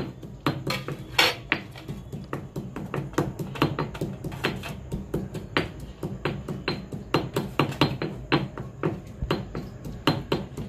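Garlic and ginger being pounded in a stone mortar with a stone pestle: repeated knocks of stone on stone, about two or three a second and somewhat uneven.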